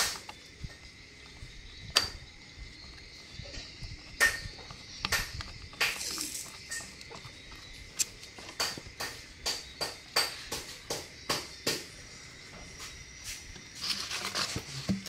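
Irregular clicks and light knocks from a Kioritz RME2300 brush cutter engine's plastic housing being handled and turned over by hand, over a faint steady high tone. The engine is not running.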